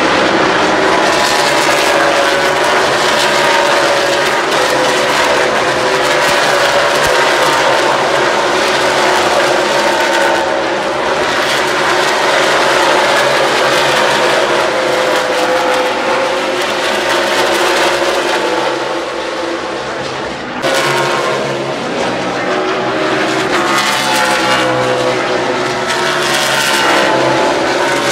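NASCAR Cup Series stock cars' pushrod V8 engines running at high revs, several cars at once, the pitch drifting up and down. About twenty seconds in the sound dips, then cuts back in abruptly.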